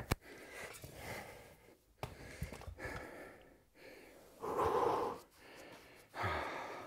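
A man breathing hard through the mouth, catching his breath after a heavy set. There is a sharp clank of dumbbells right at the start, and the loudest breath comes about halfway through.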